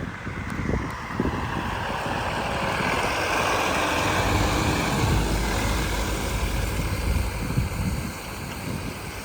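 A vehicle passes by on the road. Its tyre and engine noise swells over a few seconds and then fades away.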